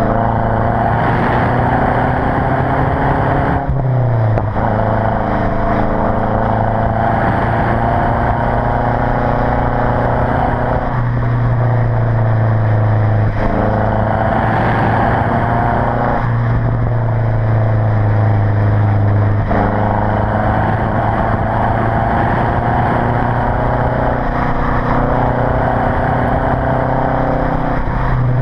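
Stock exhaust of a Mazda 3 MPS (Mazdaspeed3) with its turbocharged 2.3-litre four-cylinder, recorded close to the tailpipe while driving. The exhaust note climbs steadily and then drops back sharply several times as the car is driven.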